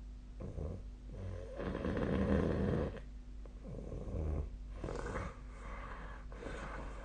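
A sleeping person snoring: uneven swells of snoring breath, the loudest and longest about two seconds in, then several shorter ones, over a faint steady hum.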